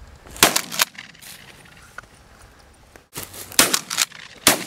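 Shotgun firing at doves: a few sharp blasts, two close together about half a second in and several more in the last second and a half.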